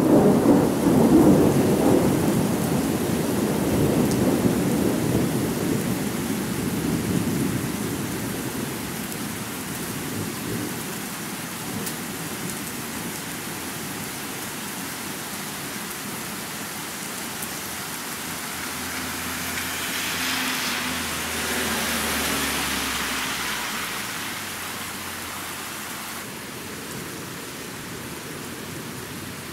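Thunderstorm: a low roll of thunder fades away over the first several seconds over steady rain. The rain hiss swells briefly about two-thirds of the way through.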